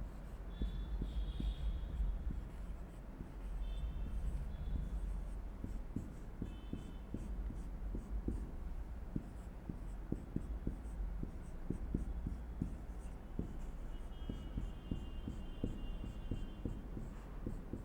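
A run of irregular light clicks and scratches, like a pen or marker writing, over a low steady rumble, with a few brief faint high tones in between.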